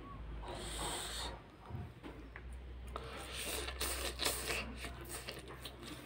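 A man slurping and chewing a mouthful of fried noodles (chow), with a dense run of short wet sounds from about three to five seconds in.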